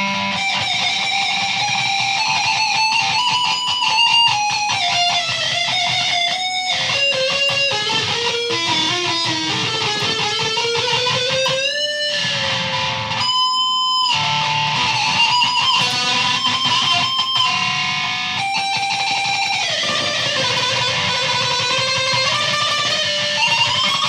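Stratocaster-style electric guitar played as an amplified lead line. It is a slow melody of long sustained notes that bend and glide in pitch, with a couple of brief pauses between phrases.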